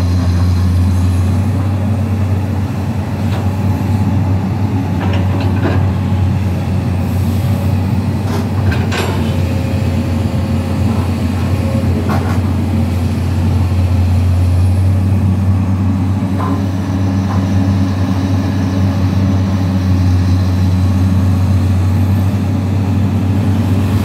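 Komatsu PC200 hydraulic excavator's diesel engine running steadily under load while digging, a strong low hum, with a few short knocks and clanks from the working machine.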